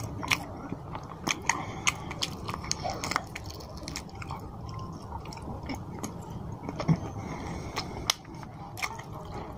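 Close-miked wet chewing and biting of a mouthful of fish curry and rice, with frequent sharp lip and teeth clicks, a few louder ones near the end.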